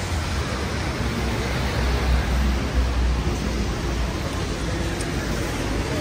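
City street ambience in wet winter weather: a steady wash of noise from traffic and the wet street, over a constant deep rumble.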